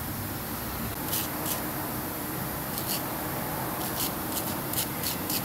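Hand wire brush scrubbing metal in about nine short, scratchy strokes spaced irregularly, cleaning electrical contacts.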